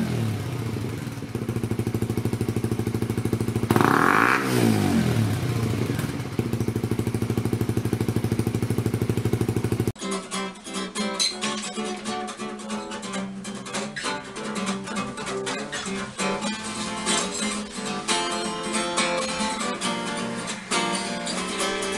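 Suzuki GSX-R125's single-cylinder four-stroke engine idling through a Yoshimura slip-on exhaust, with one quick throttle blip about four seconds in. About halfway through, it cuts off abruptly to guitar music.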